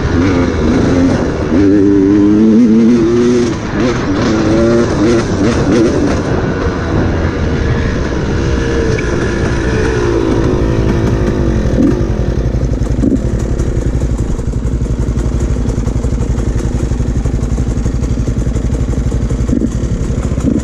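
Enduro dirt bike engine revving up and down as it rides the trail, then settling to a steady, lower, even running from about halfway through.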